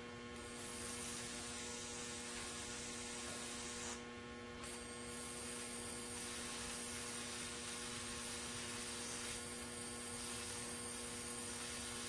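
Steady electrical hum from a small plasma-globe flyback transformer and its driver while it draws a high-voltage arc. A faint high-pitched whine joins about five seconds in.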